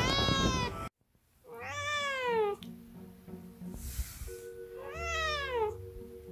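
Calico Korean shorthair cat meowing three times. Each meow is long and drawn out and rises then falls in pitch. The first is cut off abruptly about a second in.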